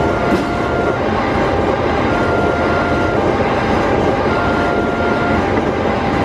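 A train passing over a level crossing, its wheels on the rails making a loud, steady rumble. Over it, the crossing's automatic electronic siren sounds a two-tone alarm, switching pitch about once a second.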